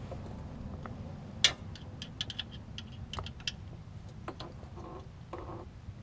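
Irregular light metallic clicks and taps of a hand tool being worked on the bolts of the Haldex AWD coupling pump, with one sharp click about one and a half seconds in and two short scrapes near the end.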